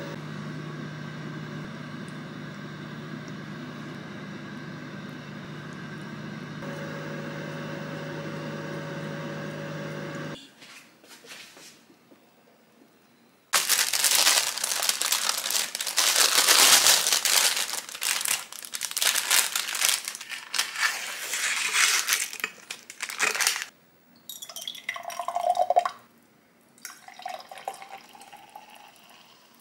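A steady hum that cuts off about ten seconds in. Then parchment paper is handled and crinkled loudly under a freshly baked pizza for about ten seconds. Near the end, a drink is poured from a bottle into a glass in two short pours.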